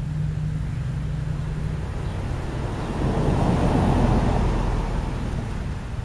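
A car driving past on the street, swelling from about three seconds in, loudest around four seconds, then fading. A steady low engine hum sits under the first two seconds.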